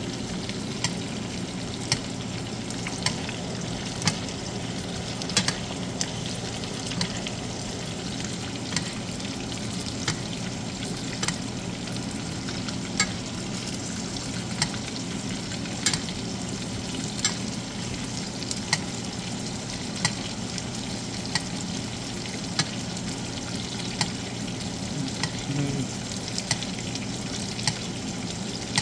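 Steaks frying in a pan of melted butter with garlic and rosemary: a steady sizzle, with a short clink about once a second as the butter is spooned over the meat in basting.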